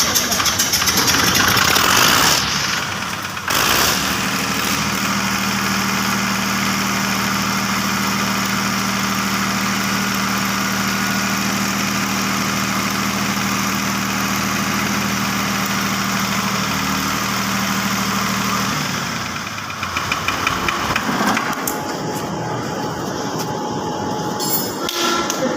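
Diesel generator engine running loudly. A steady droning tone sets in about four seconds in and cuts out near nineteen seconds, leaving rougher engine noise.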